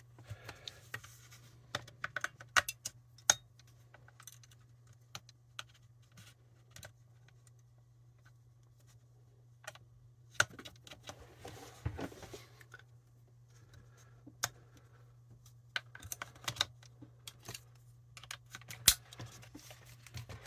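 AA batteries and a plastic battery holder being handled and fitted: scattered sharp plastic clicks and small rattles, with a few stretches of rustling, over a steady low hum.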